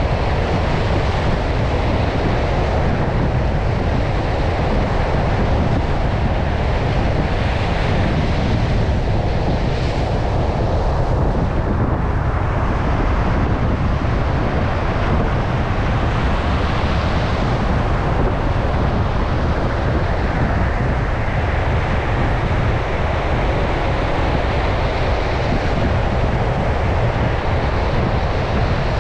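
Powerful ocean surf breaking continuously, with strong wind buffeting the microphone. It is a steady, deep wash without pauses.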